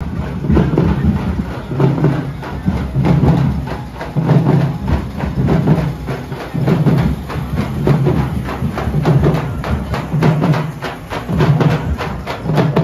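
Loud procession music: fast, sharp percussion over a heavy bass beat that repeats about once a second, the strikes growing denser near the end.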